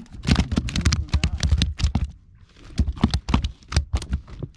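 A freshly landed fish thrashing on the boat's wooden deck boards, its body and tail slapping the planks in quick, irregular knocks, with a short pause a little past halfway.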